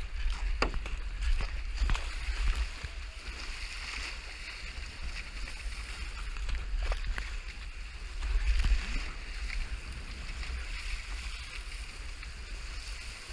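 Wind buffeting the microphone over the hiss and slosh of choppy sea water rushing past a surfski's bow, with a few sharper splashes from the paddle and waves.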